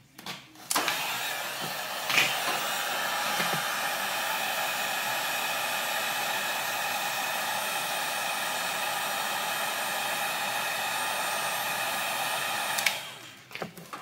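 Wagner corded heat gun switched on about a second in and blowing steadily with a motor whine, shrinking adhesive-lined heat-shrink tubing over soldered wire splices; it switches off about a second before the end.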